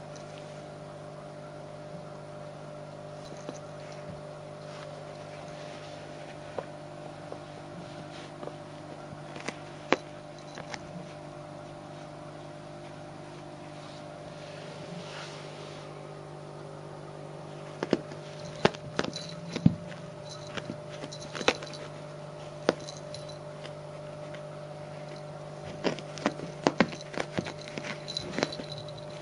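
A cat's claws scratching and pawing at the edge of a carpet: scattered sharp clicks and scratches that come thickest about two-thirds of the way through and again near the end, over a steady low hum.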